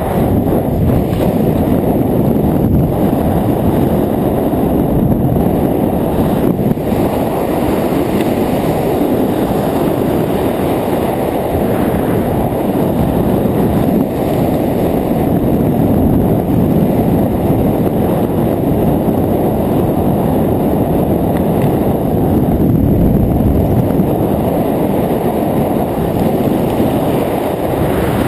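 Steady wind buffeting a helmet camera's microphone during descent under an open parachute canopy: a dense, low rush of noise that keeps up without a break.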